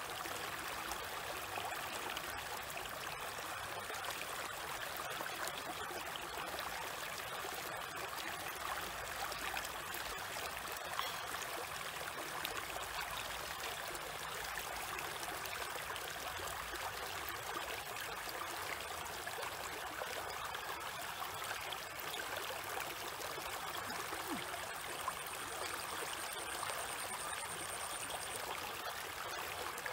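Shallow stream running steadily over a small drop and around rocks, a continuous rushing and rippling of water.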